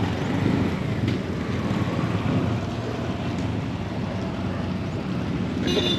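Steady street traffic noise, with engines running at low pitch and wind buffeting the microphone.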